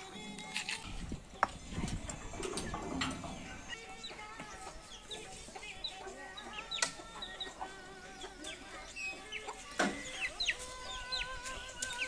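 Chickens clucking, with short high chirps scattered through and a few sharp knocks.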